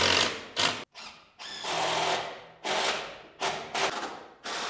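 Tool work while fastening cable straps: several sharp knocks, and twice a longer steady run of a small power tool such as a drill/driver, the second starting near the end.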